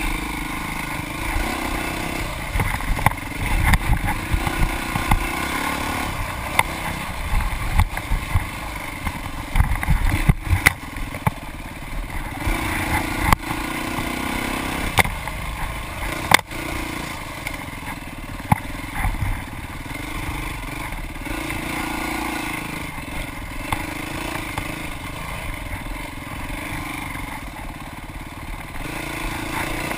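Dirt bike engine ridden hard on a trail, revving up and falling back in stretches of a few seconds as the throttle opens and closes, with scattered sharp knocks, the loudest about sixteen seconds in.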